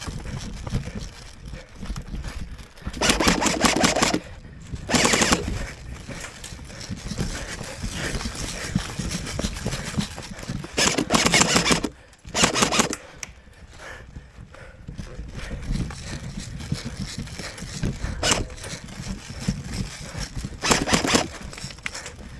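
Airsoft guns firing on full auto: about six bursts of rapid shots, each up to about a second long, with low rustling between them.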